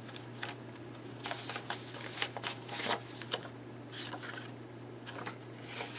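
Paper rustling and crinkling in several short bursts as hands pull and handle paper tags and ephemera from a tuck pocket of a handmade junk journal, over a steady low hum.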